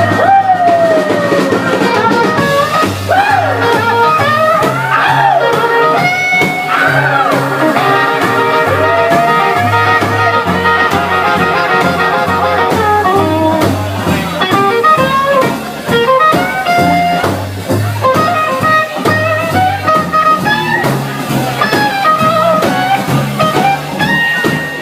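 Live rhythm-and-blues band playing an instrumental break: a bass line stepping steadily underneath with drums, and a lead line bending up and down in pitch over it.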